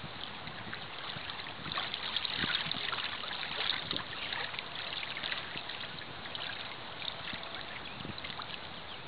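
Small lake waves lapping and washing in over a sandy landing right at the microphone, a steady fizzing, crackling wash that swells about two to four seconds in.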